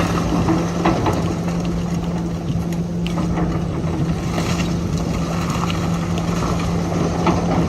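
A demolition machine's engine running at a steady hum, with scattered cracks and knocks from breaking building material.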